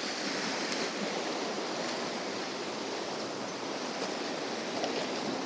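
Sea waves washing and swirling against the rocks at the water's edge: a steady rush of surf.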